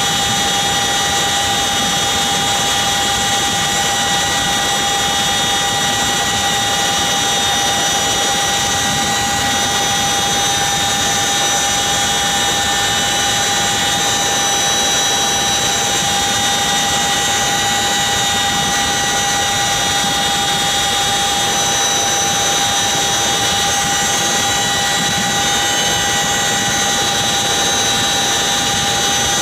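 CH-47 Chinook helicopter's twin turboshaft engines and tandem rotors, heard from inside the cargo cabin with the rear ramp open. A steady, loud whine with several high tones sits over a dense rushing noise, unchanging throughout.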